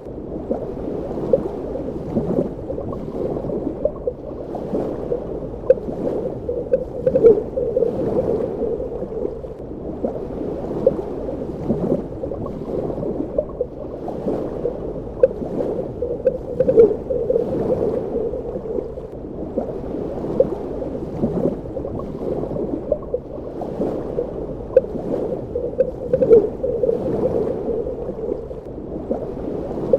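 Underwater ambience: muffled, low bubbling and gurgling of water, with frequent small irregular pops and blips.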